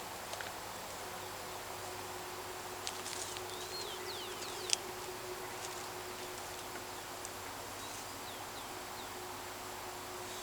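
Countryside ambience: a steady insect drone with a few short bird chirps, in a cluster about halfway through and again near the end. One sharp click comes just after the first chirps and is the loudest sound.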